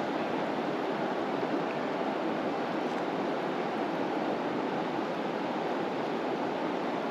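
A shallow, rocky river flowing, giving a steady, even sound of running water.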